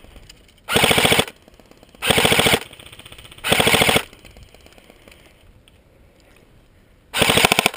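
Airsoft rifle firing four short full-auto bursts of about half a second each, made of rapid clicking shots: three close together, then one more near the end.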